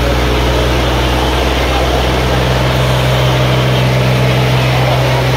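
Tractor diesel engine running steadily with a loud, low, even hum that neither revs up nor dies down.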